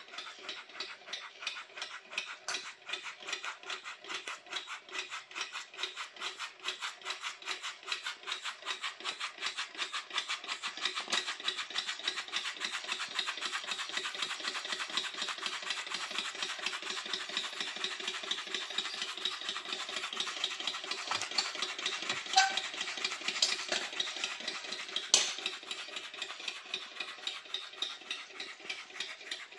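Alcohol-fired miniature model steam engine running fast: a rapid, even clatter of piston strokes and exhaust puffs. It gets somewhat louder about a third of the way in, and two sharper clicks stand out near the end.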